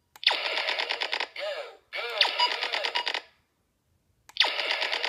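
Electronic laser-shot and hit sound effects from a Laser X toy laser tag blaster and vest as the blaster is fired at the vest: three zaps of about a second each, every one a fast stutter with sweeping tones. The third comes after a short silence.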